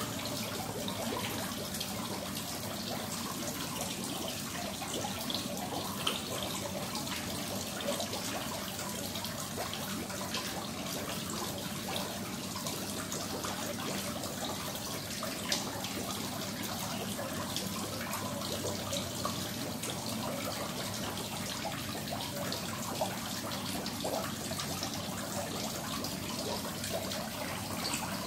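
Steady splashing of water falling from a small wall waterfall into a koi pond, with small splashes from koi crowding at the surface.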